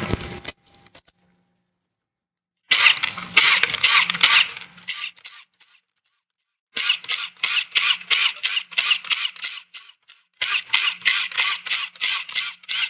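Quarter-inch ratchet with an 8 mm socket spinning off nuts, clicking rapidly and evenly in three runs of a few seconds each, with short pauses between.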